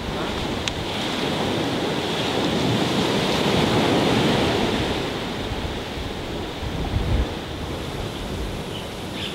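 Strong wind and surf by the sea: a steady rushing noise that swells in the middle, with low buffeting of wind on the microphone about seven seconds in.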